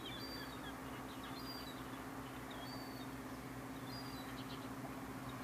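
Small birds giving short, high chirps every second or so over a steady low mechanical hum.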